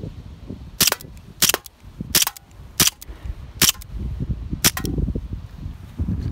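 Colt M45 CQBP CO2 blowback BB pistol firing a string of about seven sharp shots, roughly two-thirds of a second apart, the last two close together. Wind rumbles on the microphone between shots.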